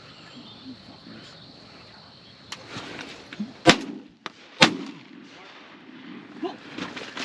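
Two shotgun shots about a second apart, hunters firing at an incoming flock of teal.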